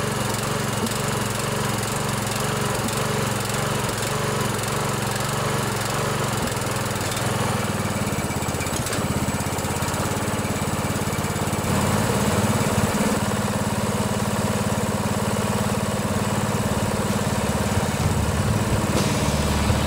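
16 hp Briggs & Stratton single-cylinder overhead-valve engine of a riding lawnmower running steadily, just after its valve lash has been adjusted to cure hard turning over. About twelve seconds in its note shifts and it gets a little louder.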